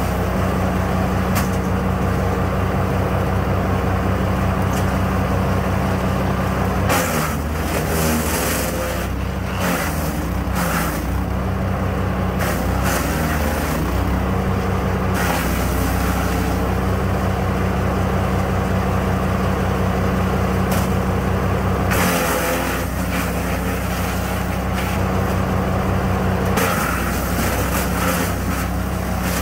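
A 15-horsepower gas wood chipper running steadily. Its engine pitch drops under load around 7 seconds and again around 22 seconds, with bursts of noisy chipping as branches go through.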